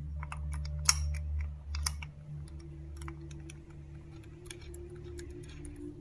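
Light, irregular clicks and taps of small bike parts being handled, the two sharpest about one and two seconds in, over background music with steady low tones.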